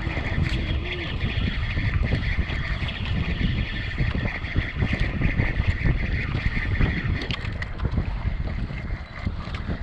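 Wind buffeting the microphone aboard a small outrigger boat on the water, with a steady high-pitched tone that weakens about seven and a half seconds in.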